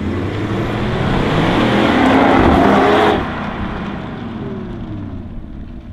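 Two cars, an ABT Audi SQ7 and an ABT Audi TT RS-R, accelerating together, their engines rising in pitch and loudest about two to three seconds in. The sound then drops suddenly and fades away.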